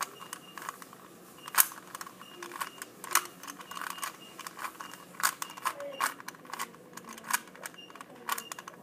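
Rubik's Cube being scrambled by hand: quick, irregular plastic clicks and clacks as the layers are twisted.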